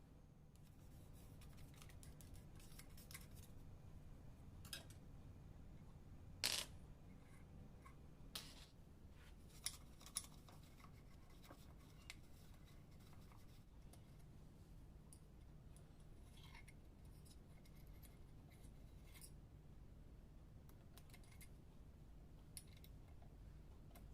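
Faint scattered clicks, taps and scrapes of small hard parts of a coffee grinder being handled during cleaning, with one louder knock about six and a half seconds in and a few sharper clicks around ten seconds in, over a low steady hum.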